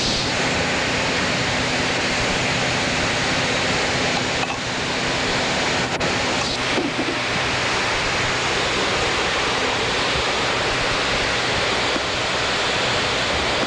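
Steady rushing hiss of wind and water around a boat under way on open salt water, with a faint steady low hum that stops about halfway through.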